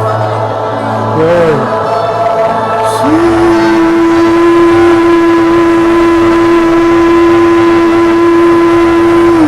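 Worship music: a short rising-and-falling sung phrase, then about three seconds in a single long note begins and is held steady over a sustained backing tone.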